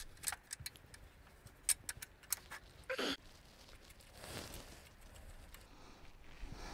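Faint metallic clicks and taps as a 12 mm bolt with washer and nut is handled and fitted by hand into an engine's exhaust bracket, with two brief scrapes about three and four and a half seconds in.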